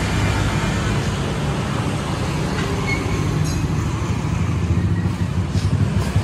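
Steady low rumble of road traffic, mostly small motorcycles running along the street.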